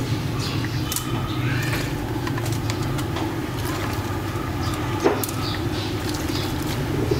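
Street ambience: a steady low hum typical of road traffic, with scattered sharp clicks and one louder knock about five seconds in.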